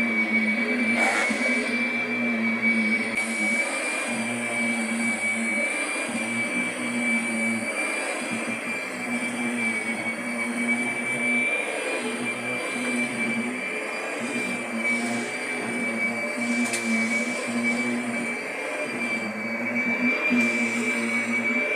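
Kirby vacuum cleaner running steadily, a continuous motor drone with a high whine.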